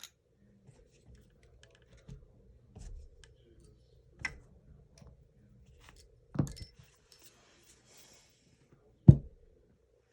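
Small clicks and knocks of parts being handled while taking the spring out of an airsoft gun's gearbox, with two louder sharp knocks, about six and nine seconds in, the second the loudest.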